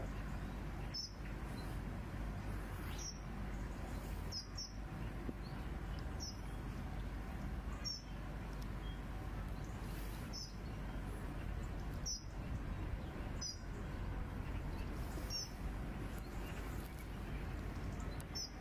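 A bird's short, high chirp repeated about every one and a half to two seconds over a steady low background hiss.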